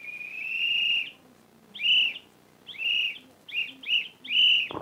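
A small hand-held whistle blown: one long, high-pitched blast of about a second, then five short blasts at the same pitch, the last a little longer.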